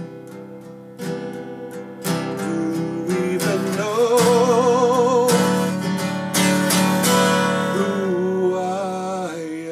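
Acoustic guitar strummed in a slow blues. A man's voice holds a wordless note with vibrato about four seconds in, and again near the end.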